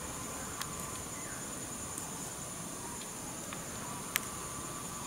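Steady, high-pitched drone of an insect chorus from the scrub, with a few brief sharp clicks, the loudest about four seconds in.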